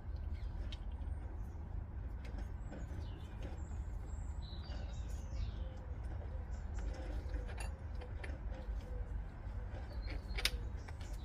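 Steady low background rumble with scattered small clicks and knocks of metal parts being handled, a sharper click near the end, and faint bird calls.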